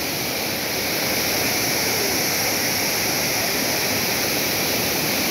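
Steady rushing of a large volume of water spilling over a canal wall and falling back into the river like a waterfall, described on the spot as very loud.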